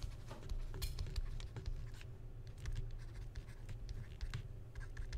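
Faint stylus taps and scratches on a tablet screen during handwriting, over a steady low hum.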